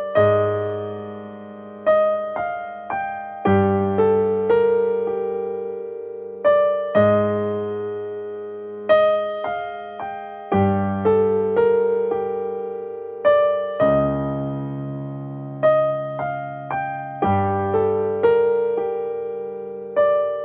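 Slow background piano music: single notes and chords struck about every one to two seconds and left to ring out and fade.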